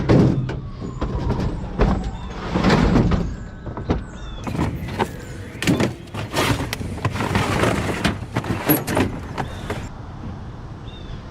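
Irregular clanks, knocks and scraping of sheet-metal appliances being shoved and dragged around in a truck bed, loudest at the start.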